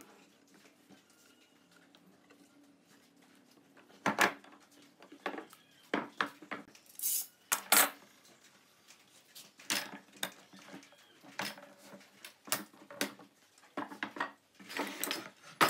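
Metal pipe clamps and quick-release bar clamps clanking and clicking as they are released and set down on the workbench, with wooden boards knocking on it. The irregular sharp knocks start about four seconds in.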